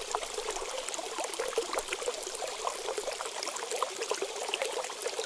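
Water trickling and splashing in a hot spring pool: a steady trickle with many small splashes.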